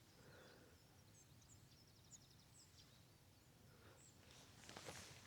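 Near silence of open countryside, with faint, distant bird chirps and a brief quick trill, and a soft rustle near the end.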